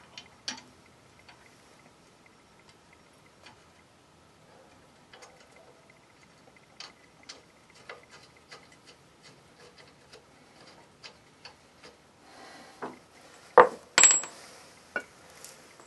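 Ratchet wrench clicking in short, regular ticks, about two a second, as a nut is run onto the front suspension, then a few loud metal clanks near the end.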